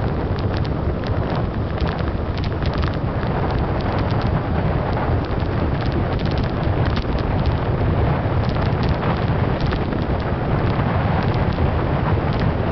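Wind buffeting the microphone of a camera on a bicycle speeding downhill, a loud steady rush, with scattered irregular clicks and rattles throughout.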